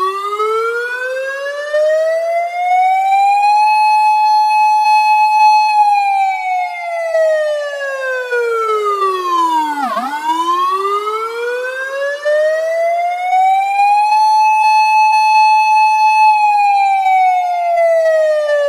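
Old-style ambulance siren wailing slowly. It climbs over about four seconds to a high steady pitch and holds it for about two seconds, then falls back down to a low growl about ten seconds in. It climbs again at once, holds, and is falling again near the end.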